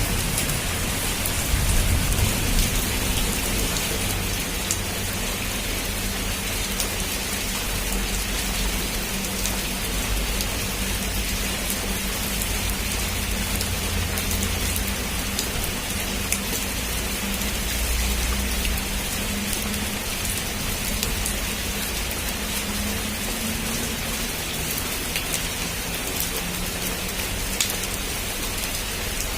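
Heavy rain falling steadily, with scattered sharp drop ticks. A low rumble of thunder is dying away over the first few seconds, and a faint low rumble swells again near the middle.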